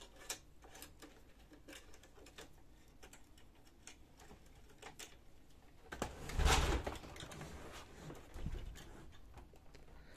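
Small clicks and taps of hands working at a laser printer's circuit board and cable connectors, then about six seconds in a louder scrape and thud as the printer is turned around on the tabletop, with a smaller bump a couple of seconds later.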